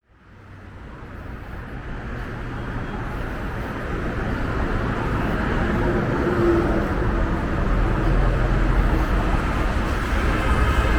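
Busy city street with road traffic, fading in over the first few seconds. A deeper engine rumble grows louder past the middle.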